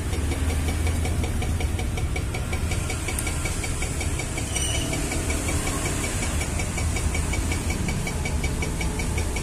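Klaz automatic espresso machine running its latte cycle: the pump buzzes steadily with a fast, even pulse, and a hiss of steam joins about three seconds in.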